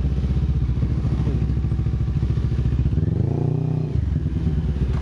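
Motorcycle engine running while riding, with a brief rise and fall in engine speed about three seconds in.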